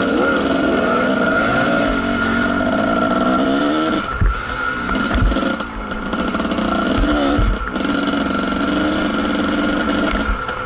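Dirt bike engine running under throttle on a trail ride, its pitch rising and falling in the first couple of seconds, then holding steady. About four seconds in it eases off, with a few low thumps, and picks back up a couple of seconds later.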